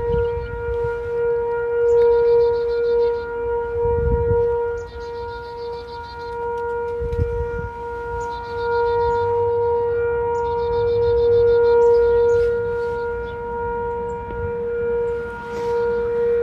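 Sentry 3V8-H outdoor warning siren sounding a steady wail held at one pitch, slowly swelling and fading in loudness.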